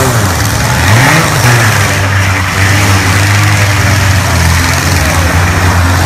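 Motor vehicle engines running loudly with a steady low drone, one briefly revving up about a second in.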